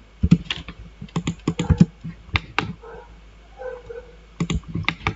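Computer keyboard and mouse clicking in irregular taps, singly and in quick clusters, as a command is typed and points are clicked on screen.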